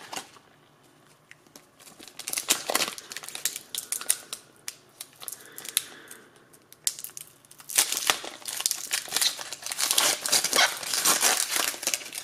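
The foil wrapper of a Pokémon booster pack crinkling as it is worked and torn open by hand. There is a short crinkle about two seconds in, then dense crinkling through the last four seconds.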